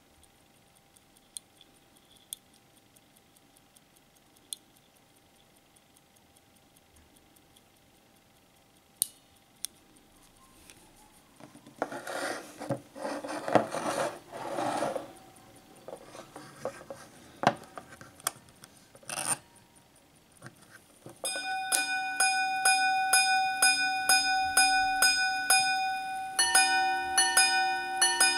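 Minute repeater wristwatch, recased from a pocket watch, handled with light clicks and a stretch of rubbing and knocking, then about twenty seconds in striking the time on its gongs: a run of evenly spaced single-note chimes, followed near the end by alternating two-note chimes.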